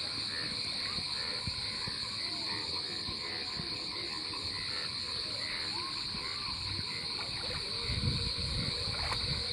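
Night chorus of frogs and insects: a steady high insect trill with frogs calling in regular, evenly spaced pulses. A brief low rumble comes near the end.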